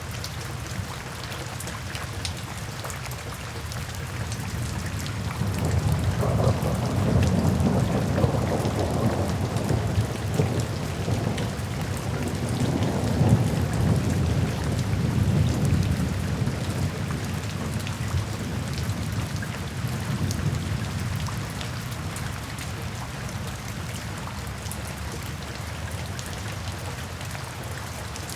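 Steady rain falling, with a long roll of thunder that swells in a few seconds in, rumbles for about ten seconds and slowly dies away.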